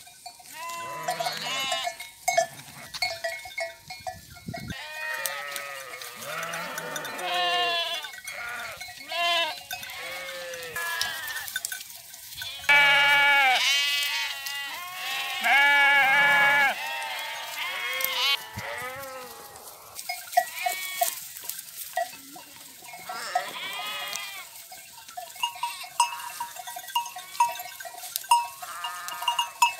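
A flock of sheep and lambs bleating, many calls overlapping and answering one another, loudest about halfway through. Bells on the sheep ring and clank among the calls, most clearly in the second half.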